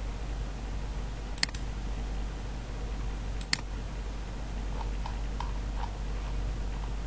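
Computer mouse clicking: two sharp clicks about two seconds apart, then a few faint soft ticks, over a steady low electrical hum.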